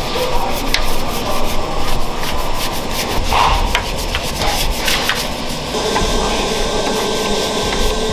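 Hand brush scrubbing the soaped, tar-grimed bare metal of a Subaru Impreza's emptied engine bay, in quick repeated scratchy strokes.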